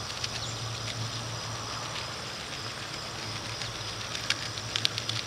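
An old foam-rubber roof gasket being slowly peeled from an aluminum camper roof, its adhesive and plastic membrane pulling away with a few faint crackles about four to five seconds in. A steady low hum and a steady high tone run underneath.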